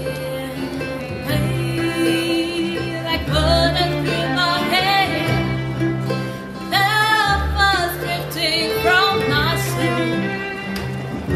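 Live bluegrass band playing: a woman singing held, wavering notes over acoustic guitar, upright bass, fiddle and mandolin.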